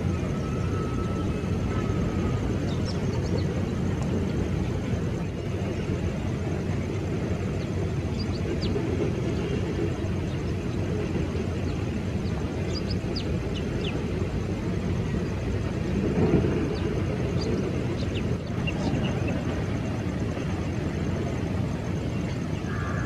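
Distant Airbus A320-214's CFM56 jet engines running at low taxi thrust: a steady low rumble, with a brief swell about two-thirds of the way through.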